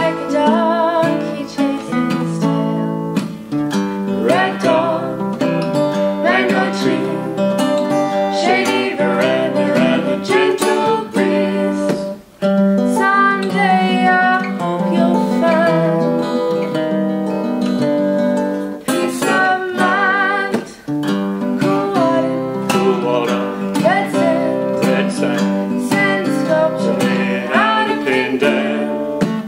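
Acoustic guitar music: guitars strumming and picking a folk-style instrumental passage, with a wavering melodic lead line over the chords.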